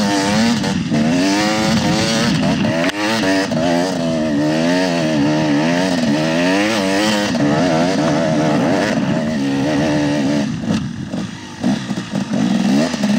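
KTM 300 XC-W two-stroke single-cylinder dirt bike engine with an FMF exhaust, its pitch rising and falling again and again as the throttle is worked while riding through snow. Near the end the engine note breaks up into short choppy blips for a couple of seconds before it pulls steadily again.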